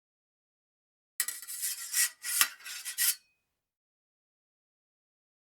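Fencing sabre blade sliding, metal scraping on metal in a run of quick surges with a faint ring through it, starting about a second in and lasting about two seconds.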